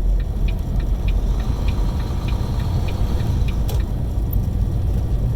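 Semi-truck cab while driving: steady low engine and road rumble, with a light tick repeating about every half second.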